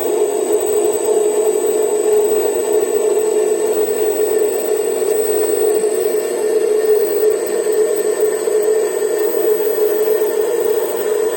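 Weiss WM240 bench lathe running under power while screw-cutting a left-hand 14 mm trapezoidal thread of 2 mm pitch, the tool scraping through a nearly final pass. A steady drone from the machine, a faint high whine over it, and an even level throughout.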